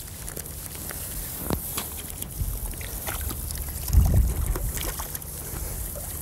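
Canal water sloshing and splashing as a keepnet full of fish is lowered into it to release the catch, with a few short splashes. A gust of wind buffets the microphone about four seconds in.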